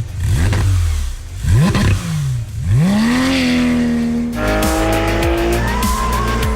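Porsche 911 GT3 RS 4.0-litre six-cylinder engine revving: a few quick blips rising and falling in pitch, then a rise to high revs held steady from about three seconds in. It changes to a steady high-rev run a little over four seconds in.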